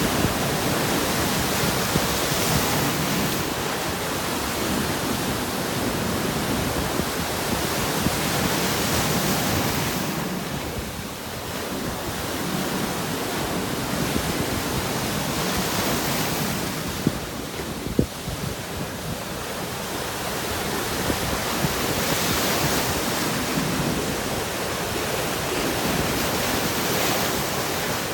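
Sea waves breaking on rocks: a continuous rushing wash that swells and eases every several seconds, with a couple of sharp clicks about two-thirds of the way in.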